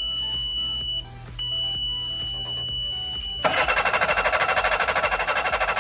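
The boat engine's warning alarm sounds a steady high beep, which signals that the fuel pump is not running. About three and a half seconds in the beep stops and a loud, rapidly pulsing harsh sound starts: the engine's starter cranking it.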